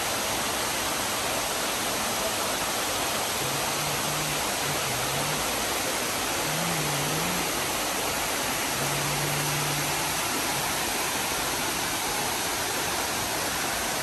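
Waterfall running steadily, a constant rushing hiss of falling water, at the low flow of the season.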